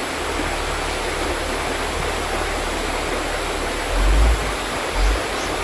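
Mountain river flowing, a steady rush of water, with two brief low bumps about four and five seconds in.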